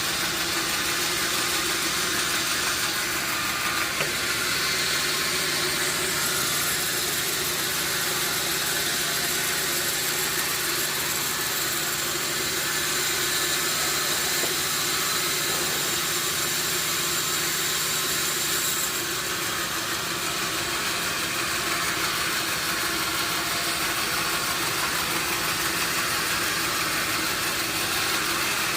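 Sawmill machinery running steadily with a constant motor hum. A brighter, higher hiss joins a few seconds in and drops away about two-thirds of the way through.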